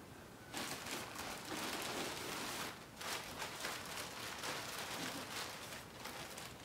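Plastic packaging bag crinkling and rustling as it is handled, starting about half a second in and running on with many small crackles.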